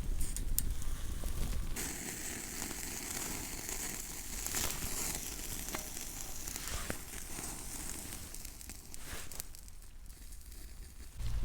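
Wood campfire crackling, with a steady hiss and scattered sharp pops. A low rumble sounds during the first two seconds.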